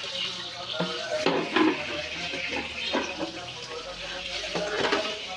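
Aluminium cookware being washed by hand: several metal knocks and clatters as the pots are scrubbed with a soapy sponge and handled over a steel steamer tray, with water running from a tap.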